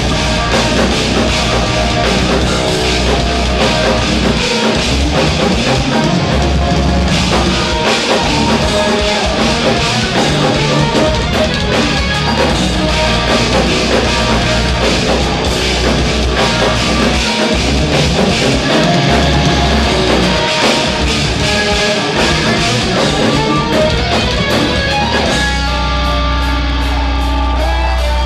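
Live instrumental progressive metal: distorted electric guitars playing fast, shifting riffs over a drum kit, with no vocals. Near the end the band settles onto heavy, held low notes.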